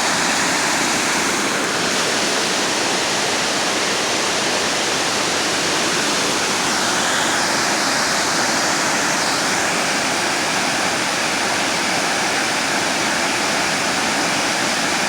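Water pouring over a dam spillway: a steady, even rushing.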